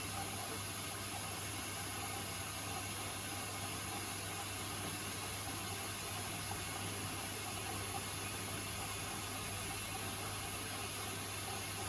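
Beko WTK104121A washing machine running mid-cycle: a steady low hum under an even hiss, with no rhythm or change in speed.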